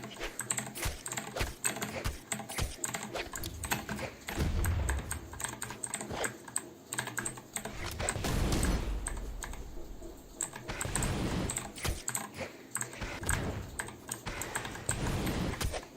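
Fast, continuous typing on a Vortexseries VX8 mechanical keyboard with clicky blue switches, the keys clicking rapidly, with a few brief low thuds mixed in.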